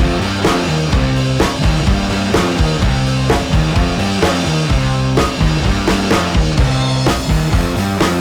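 Instrumental rock background music with a driving drum kit and bass line.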